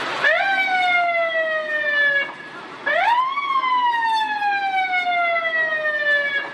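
Police siren sounding two sweeps, each rising quickly and then falling slowly, with a short break about two seconds in; the second sweep climbs higher and lasts longer.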